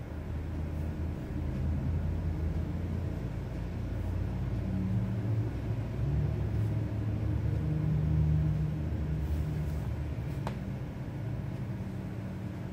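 A low rumble with a few shifting hum tones, swelling in the middle and easing toward the end, like an engine or machine running; a single sharp click about ten and a half seconds in.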